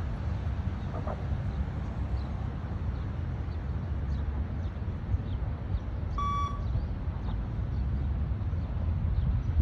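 A single short electronic beep from a shuttle-run beep test recording, about six seconds in and lasting under half a second, signalling the runners to reach the line. It sounds over a steady low rumble.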